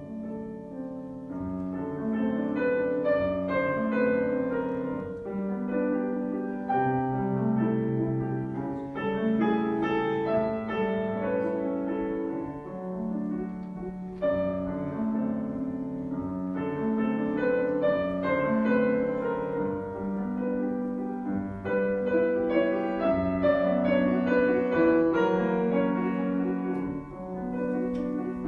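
Solo acoustic piano playing a classical piece, a continuous flow of notes over a steady accompaniment.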